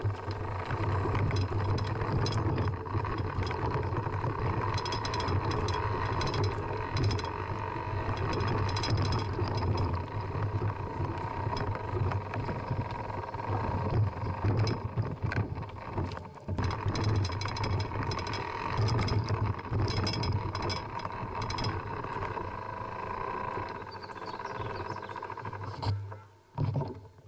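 Mountain bike riding over rocky dirt trail, heard from an action camera on the ride: a continuous rumble with scattered rattles and knocks from tyres, frame and camera mount over rocks and roots. About a second before the end it drops away as the riding stops.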